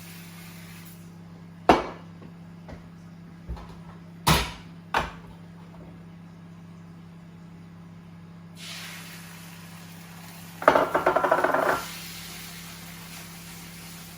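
Cookware handled on a stovetop: a frying pan knocks against the hob and utensils several times. About two-thirds of the way in a steady sizzle begins as the egg mix goes into the hot pan, followed by a short burst of rapid metal clattering. A low electrical hum runs underneath throughout.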